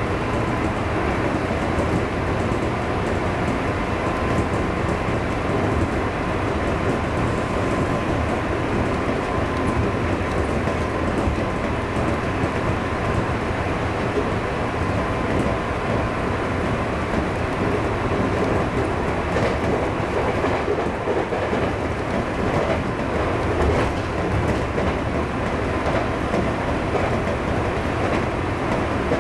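JR 211 series electric train running along the line, heard from inside the driver's cab: a steady rumble of wheels on rail, with a few clicks over rail joints.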